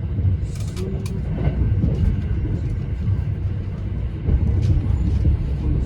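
Running noise inside a moving limited express electric train's passenger car: a steady low rumble from the wheels on the rails, with scattered light clicks and a brief hiss about half a second in.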